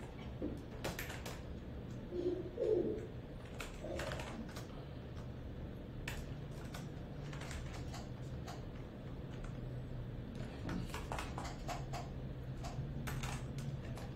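Scattered keystrokes on a computer keyboard as code is typed, over a low steady hum. A brief low hum-like sound comes about two seconds in.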